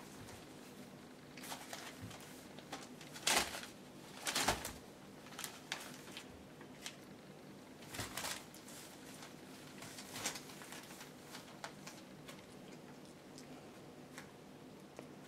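Young puppies scrambling over newspaper and fleece bedding: scattered rustles and scratches of paper, the loudest two about three and four and a half seconds in, over a faint steady hum.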